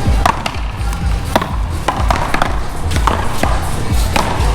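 Paddleball rally: several sharp cracks of paddles hitting the rubber ball and the ball smacking the wall, over music with a heavy, steady bass beat.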